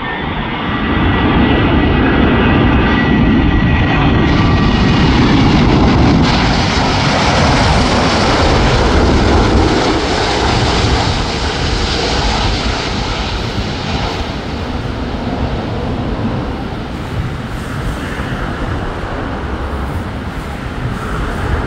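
Twin-engine widebody jet airliner on landing approach passing low and close. A whine of engine tones rides over a rushing jet roar that swells about a second in and stays loud, then eases to a steadier rumble after about eleven seconds.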